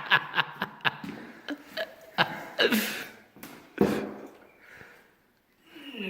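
A person's short gasps and groans, each falling in pitch, after a run of scattered clicks and knocks.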